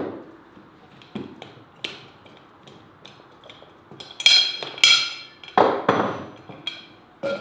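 Cast-iron Afghan kazan being handled on a wooden table. A heavy knock at the start as it is set down, then small clicks and two bright, ringing metal clangs about four seconds in as its lid clamp is worked, followed by a few duller knocks.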